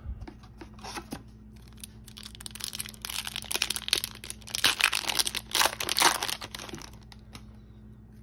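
A 2021-22 Upper Deck MVP hockey card pack wrapper tearing and crinkling as it is ripped open. The crackling builds from about two seconds in, is loudest in a few bursts past the middle, and dies away near the end.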